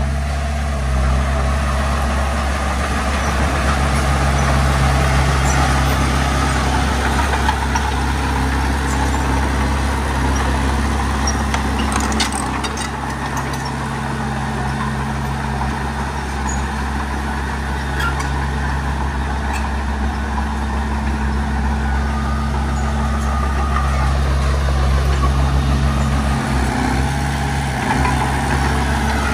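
Diesel engine of a small crawler bulldozer running steadily, its note shifting slightly a few times, with a few faint clicks.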